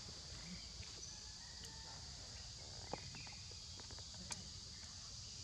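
Steady, high-pitched outdoor insect chorus over a low background rumble, with two sharp clicks about three and four seconds in.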